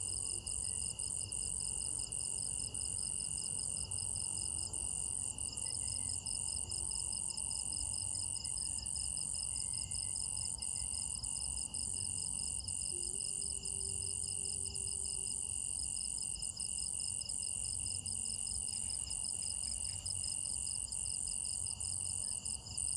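Night insect chorus of crickets: a steady, high-pitched ringing trill with a faster pulsing trill beneath it.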